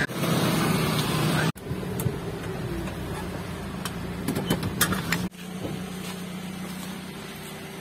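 A motor vehicle's engine running with a steady hum, heard across short clips with abrupt cuts between them. Scattered sharp clicks and knocks fall in the middle clip.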